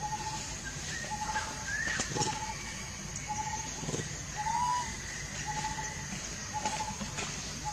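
A bird calling over and over: a short, slightly warbled note about once a second, with a higher gliding note now and then, over a steady high hiss.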